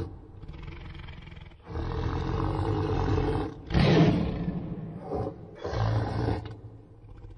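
Reconstructed Smilodon (sabre-toothed cat) vocalization, digitally built from modern animal sounds. It is a run of deep roars and growls, loudest about four seconds in, trailing off into a quieter low rumble near the end.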